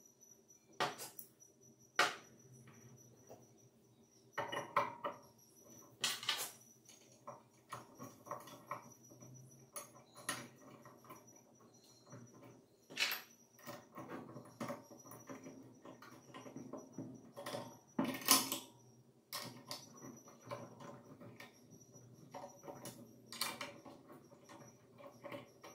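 Irregular clicks, knocks and scrapes of metal and plastic parts being handled and fitted together as the grinder holding bracket is bolted onto the arm of a sliding angle grinder stand, with a few louder clacks.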